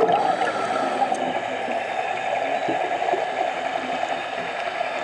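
Scuba diver's exhaled bubbles heard underwater through the camera housing, a gurgling rush that eases off within the first second and settles into steady bubbling.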